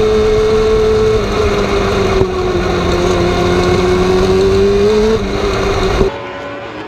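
The 600cc four-cylinder motorcycle engine of a wingless micro sprint car running hard, heard from inside the car. Its pitch sags through the middle, climbs again and falls off about five seconds in. Near the end it switches to quieter engines of several cars heard from trackside.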